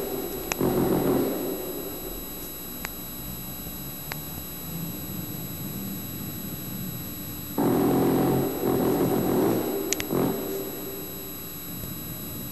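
Deep, brass-like horn blasts of the 'strange sky sounds' kind: one dies away about a second in and a second long blast starts about seven and a half seconds in and lasts about three seconds. A few faint sharp ticks fall in the quieter stretch between them.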